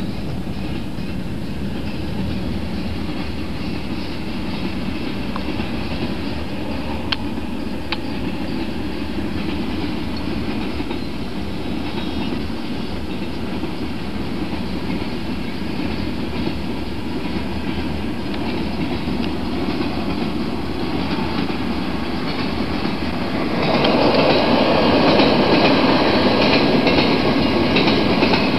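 Union Pacific manifest freight train's cars rolling steadily past a grade crossing. The rumble steps up, louder and brighter, a few seconds before the end.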